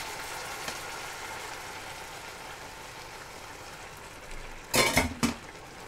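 Chicken, rice and vegetables in a steel pan on high heat, sizzling steadily. About five seconds in, a ladle of chicken stock poured into the hot pan makes a short, loud splash and hiss.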